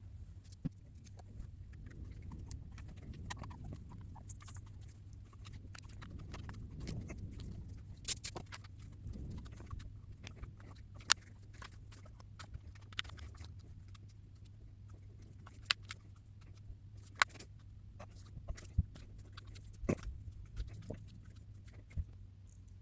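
Faint rubbing and handling noise as a rubber Hogue Handall grip sleeve, wet with glass cleaner, is stretched and worked onto a Taurus G3c pistol frame, with scattered sharp clicks and taps throughout.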